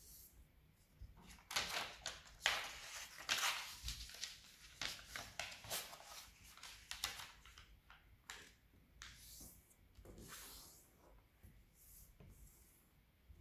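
Origami paper rustling and crinkling as it is folded and its creases pressed flat by hand: a dense run of short swishes and crackles for the first half, then sparser rubs.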